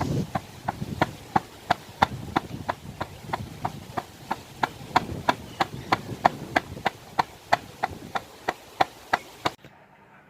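A steady rhythmic beat of sharp knocks, about three a second, which stops about a second before the end.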